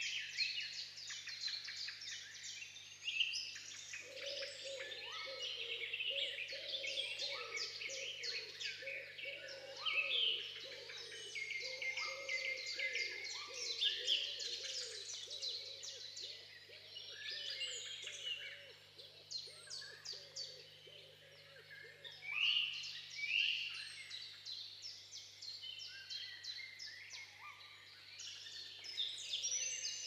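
Several songbirds singing at once, with overlapping high chirps and fast trills throughout. A lower, wavering run of calls sits beneath them from about four seconds in until about halfway.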